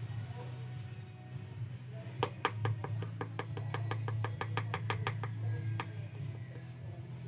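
A rapid run of sharp clicks, about five or six a second, from hands working inside a wooden stingless-bee hive box. The run starts about two seconds in and stops about three and a half seconds later, over a steady low hum.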